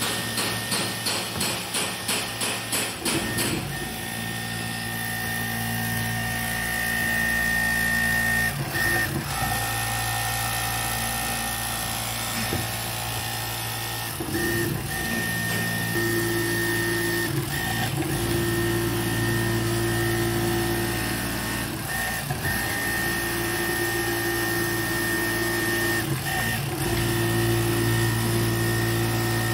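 JKC XG13095 rotating-head automatic template sewing machine running: a rhythmic clatter of about four knocks a second for the first three seconds, then a steady motor hum with a high whine that breaks off briefly several times.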